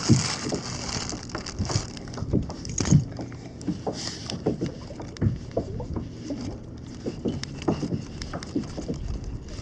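Irregular knocks, clicks and rustles of hands handling a small flathead and a metal slug lure close to the microphone while the hook is worked free. The loudest knocks come near the start and about three seconds in.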